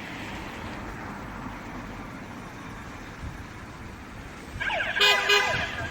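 A steady background hum, then near the end a parking-exit warning alarm sounds. It gives rising siren sweeps, followed by a loud burst of several tones at once.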